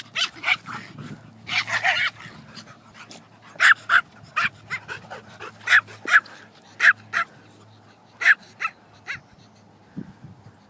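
Dogs barking: a string of short, sharp barks, some in quick pairs, with a denser flurry about two seconds in and a pause near the end.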